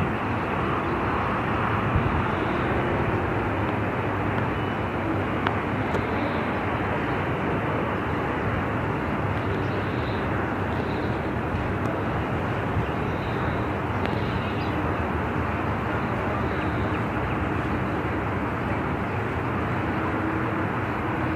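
Steady outdoor ambient noise: an even low rumble with a hiss over it, with no distinct separate events.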